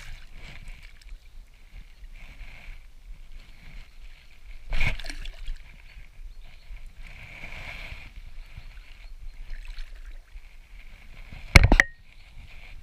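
Water splashing and sloshing as a hooked trout thrashes at the surface beside the angler, with a louder splash about five seconds in. A sharp, loud knock near the end.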